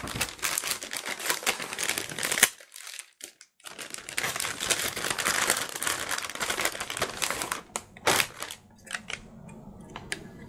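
Packaging crinkling and rustling as a graphics card is unwrapped and handled. There is a short pause about two and a half seconds in, then more crinkling, then a few light clicks and taps near the end.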